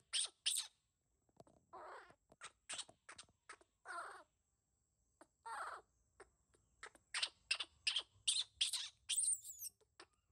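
Newborn baby macaque crying in a series of short, shrill calls, some hoarse and some high and squeaky. The calls come faster in the second half and end in a high, falling squeal.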